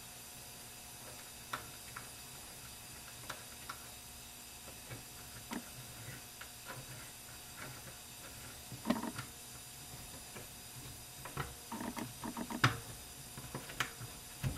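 Faint, scattered small metallic clicks and ticks of small bolts being threaded by hand into a Ford C6 transmission valve body's end plate, coming more often in the last few seconds.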